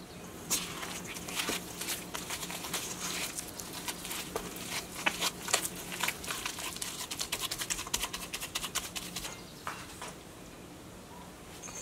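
Sticky bread dough being squeezed and worked by hand with melted butter in a stainless steel bowl: a run of wet, sticky clicks and squishes that comes quickest just before it stops, about nine seconds in.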